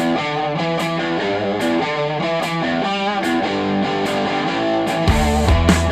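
Rock music played back over hi-fi speakers: an electric guitar picks out a riff of separate notes, and bass and drums come in heavily about five seconds in.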